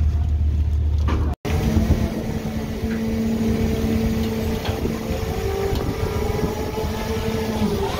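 Fishing vessel's machinery running: first a steady deep hum, then, after a brief dropout about a second and a half in, a steady whine at two pitches over rushing deck noise, which stops shortly before the end.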